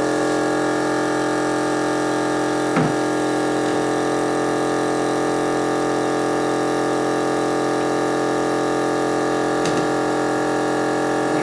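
A small 12-volt electric air pump running steadily with a constant buzzing drone as it inflates a snow tube. A single light knock about three seconds in.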